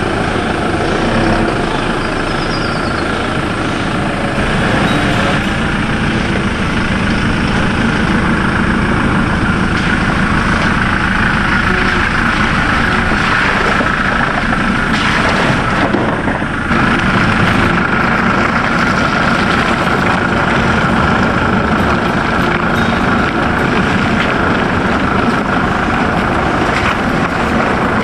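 Steady engine drone with a constant whine, unbroken throughout.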